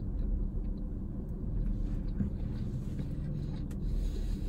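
A car engine idling, a low steady rumble heard from inside the cabin, with a few faint small clicks over it.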